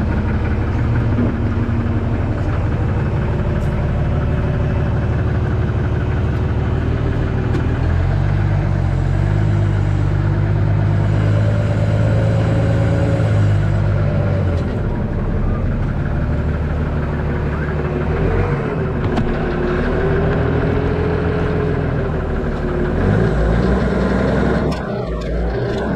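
Forklift engine running from the operator's seat, its pitch climbing and falling as the throttle is worked, with a steady higher whine over it.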